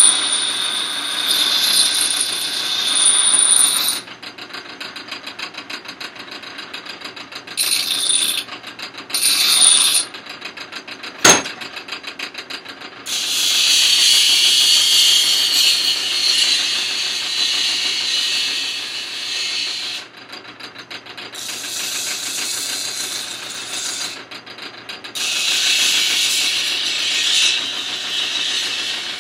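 Powered sharpening machine running with a rapid, even ticking and a low hum, while a steel tool blade is held to it in long stretches of high-pitched grinding hiss. There are pauses between passes, and a single sharp click about a third of the way through.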